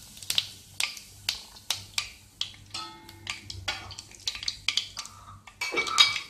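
Mustard and cumin seeds crackling in hot oil as a tempering, with sharp pops about two a second. A louder clatter and sizzle come near the end.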